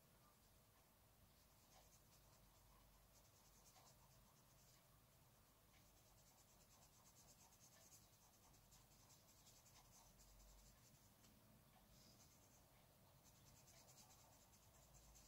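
Faint scratching of an Inktense coloured pencil shading on paper, light strokes in stretches with short pauses between them.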